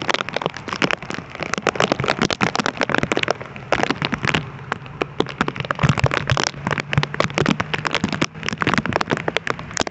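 Rain drumming on the plastic bag the recording phone is sealed in: a dense, irregular spatter of sharp taps over a steady hiss of rain.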